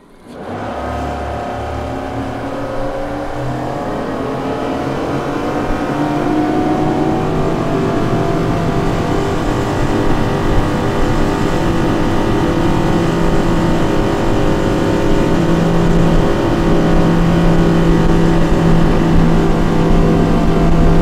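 Twin Yamaha XTO 425 hp V8 four-stroke outboards accelerating hard from low speed. The engine note climbs in pitch over the first several seconds, then holds steady and grows slowly louder as the boat gets up to speed.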